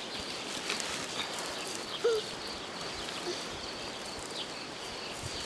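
Quiet rural outdoor background with light rustling and ticking of orange baling twine being pulled and tightened into a knot on a straw bale, over a faint steady high whine. One short chirp-like sound about two seconds in.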